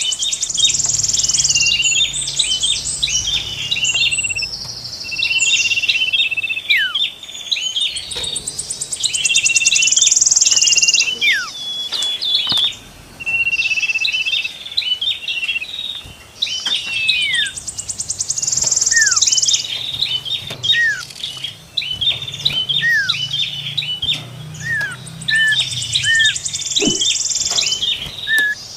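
Several small songbirds singing together: rapid repeated sharp chirps with quick downward-sliding whistles, broken every few seconds by buzzy high-pitched trills that last a second or two.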